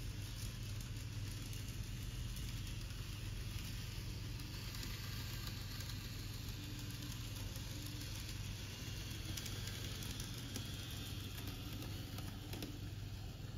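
Model DE15 diesel locomotive running along the layout track: a steady low hum and hiss, with a few faint clicks in the second half.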